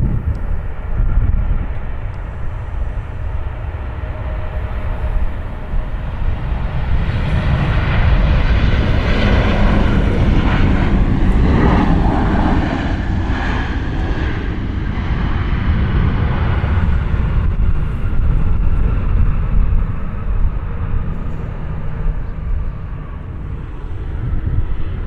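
Airliner passing low on its landing approach: the engine noise swells to a peak about halfway through, then fades with its pitch falling as it goes by. Strong gusty wind rumbles on the microphone throughout.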